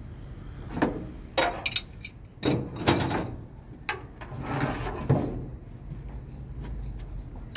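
Trailer air-line couplings and coiled hoses being handled on a prime mover's chassis: a series of sharp metallic clicks and knocks, with two longer rushing sounds about two and a half and four and a half seconds in.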